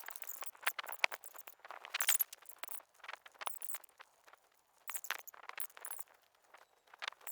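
Irregular small metallic clicks and scrapes of a screwdriver driving the mounting screws that fix a motherboard into a PC case.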